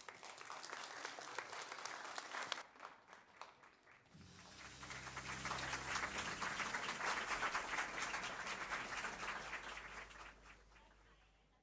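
Audience applauding in two stretches: a short round, a lull of about a second, then a longer round that fades out.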